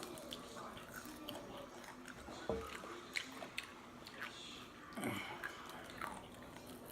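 Close-up chewing and biting sounds of people eating fried food, with scattered small clicks and two louder mouth or handling noises about two and a half and five seconds in.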